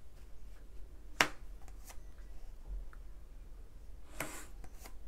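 Tarot cards being handled: one sharp card snap about a second in, then a soft rustle of cards sliding near the end, with faint small ticks between.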